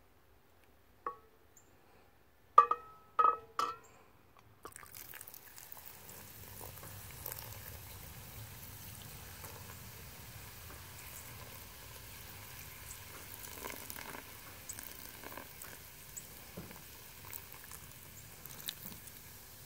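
Three sharp ringing clinks, then from about five seconds in, beer pouring from a glass bottle into a cast iron Dutch oven of hot chili, splashing and sizzling steadily.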